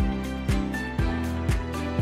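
Background music with a steady beat, about two beats a second, over held notes.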